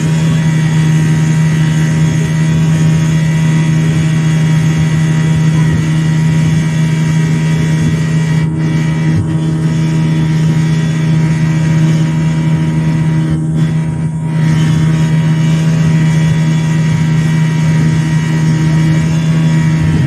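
Outboard motor running steadily at speed, pushing a small open boat: a loud, even engine drone.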